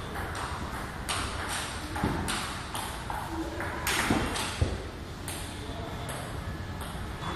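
Table tennis rally: the ball clicking sharply off paddles and table in a steady run, two or three hits a second.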